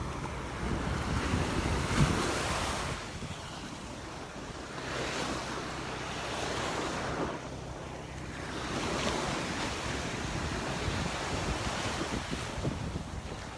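Surf breaking and washing up the beach, swelling and ebbing in surges every few seconds, with wind rumbling on the microphone.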